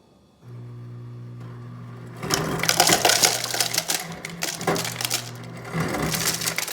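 Samsung RS25J500DSG refrigerator door ice dispenser running in crushed-ice mode. The auger motor starts with a steady low hum about half a second in, and from about two seconds in crushed ice grinds and clatters out of the chute, loud and rattling until near the end. The dispenser is working again.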